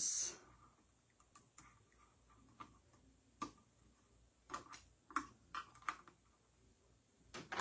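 Hand-cranked Cut & Emboss die-cutting machine feeding its plate sandwich through, giving faint, irregular clicks about twice a second.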